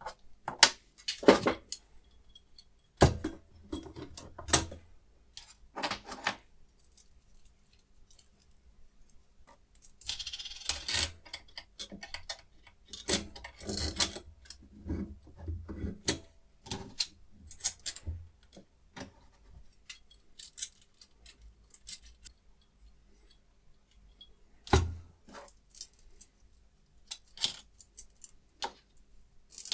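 Irregular metallic clicks, clinks and short scrapes of small metal parts being handled and fitted together on a clamp-type knife sharpening rig, with a louder knock near the end.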